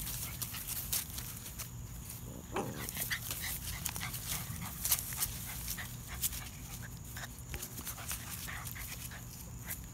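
Puppies play-fighting on grass: rustling and scuffling with a few short puppy vocalisations. One of these sounds, about two and a half seconds in, falls in pitch.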